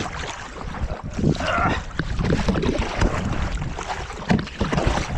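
Wind buffeting the microphone over water splashing and knocking from a kayak being paddled, with irregular short knocks throughout.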